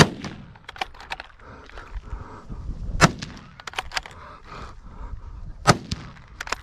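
Three rifle shots about three seconds apart, each a sharp crack with a short ringing tail, with fainter cracks and snaps between them.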